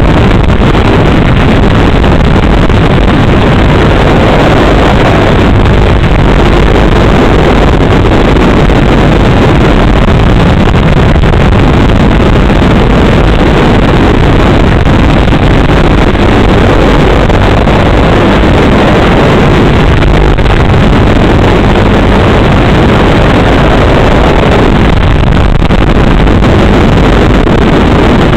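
Loud, steady, distorted rushing noise with no clear pitch, carried on a racing drone's analog FPV video recording.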